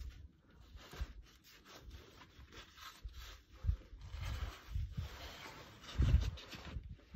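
Clothing and body rubbing and scraping against granite as a climber squirms upside down through a tight crack, with irregular dull low thumps, the loudest about six seconds in.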